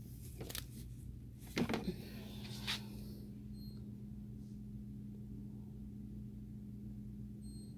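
A steady low hum, with a few brief clicks and knocks about half a second in, a cluster around one and a half to two seconds, and one more near three seconds.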